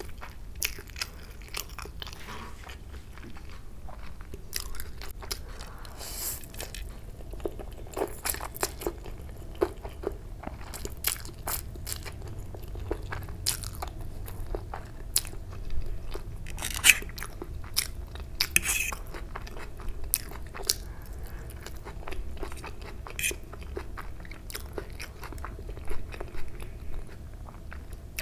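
Close-miked eating sounds of fried Maggi instant noodles being chewed and slurped off a fork, with many sharp, irregular wet mouth clicks.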